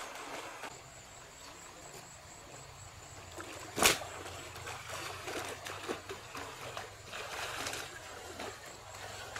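Water splashing and trickling, with one loud, sudden sound about four seconds in.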